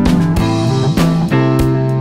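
Background music: a strummed guitar over a steady beat, with notes changing about every half second.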